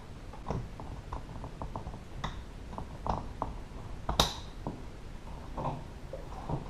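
Irregular light clicks and taps of plastic wiring connectors and door trim being handled, with one sharper snap a little after four seconds in.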